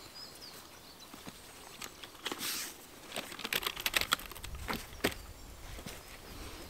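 A lightweight folding camp chair being assembled: the nylon seat fabric rustles and swishes while the pole frame clicks and knocks as it is fitted into the seat, with a run of sharp clicks in the middle and two knocks near the end.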